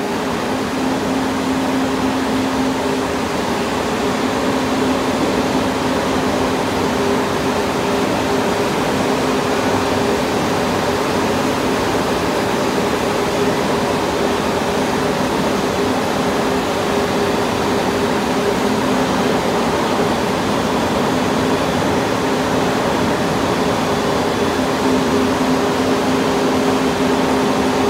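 ASL-RT8 ride-on concrete floor grinder running under load as it grinds a concrete floor: a steady motor hum with two constant tones over a rough grinding hiss.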